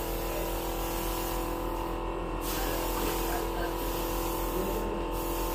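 Steady background hum with faint, indistinct voices; no distinct events stand out.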